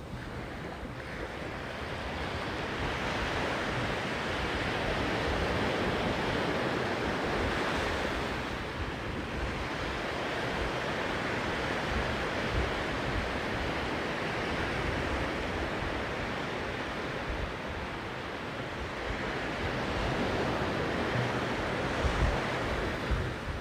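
Ocean surf washing onto a sandy beach, the wash swelling and easing as successive waves roll in. Wind buffets the microphone with a low rumble.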